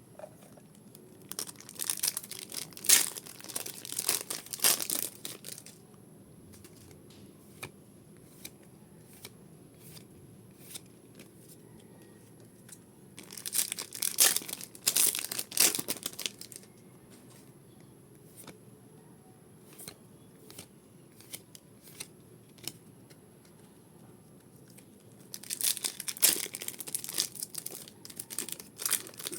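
Foil booster-pack wrappers of Pokémon trading cards being torn open and crinkled in three bouts of a few seconds each, with scattered soft clicks in between.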